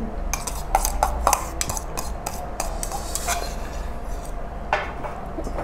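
Metal spoon scraping and clicking against a noodle cup as the last noodles are scooped out, in irregular clicks a few times a second.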